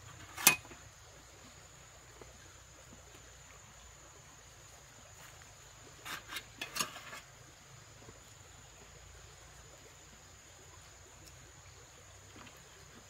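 Insects trilling steadily at a high pitch in the background, with one sharp click about half a second in and a quick run of clicks and knocks around six to seven seconds.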